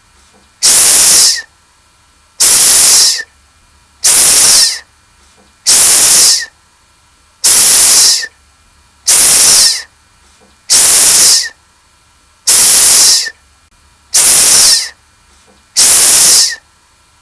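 A voice making the phonics /s/ sound: a drawn-out snake-like 'sss' hiss, repeated ten times at an even pace, each just under a second long with about a second's pause between.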